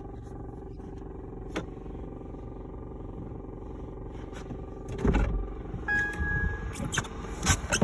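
A 2016 Fiat 500X makes a steady droning hum with several tones in it, the unexplained weird noise under investigation. From about five seconds in, louder knocks and clicks come in, with a brief high beep around six seconds.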